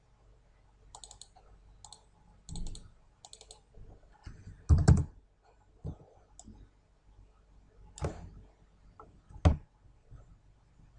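Computer mouse clicks and keyboard keystrokes: a run of sharp, light clicks in the first few seconds, then a few heavier, louder knocks spaced a few seconds apart.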